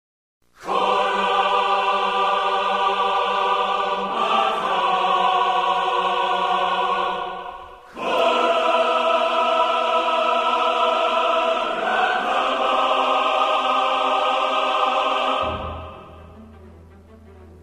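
Background music: two long held chords, about seven seconds each with a short break between them, then a much quieter low passage near the end.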